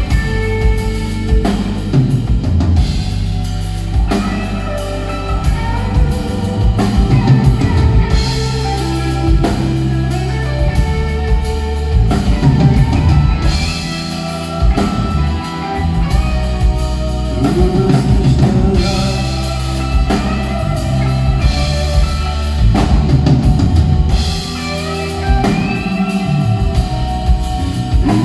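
Live rock band playing a mostly instrumental passage of a ballad-like song: electric guitars, keyboards and a drum kit over a steady bass, heard through the hall from the audience.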